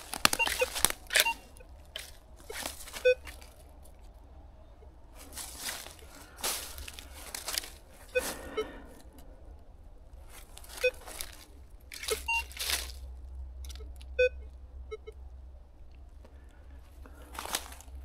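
Footsteps crunching through dry fallen leaves, with a metal detector giving scattered short low beeps as its coil sweeps over iron junk in the ground.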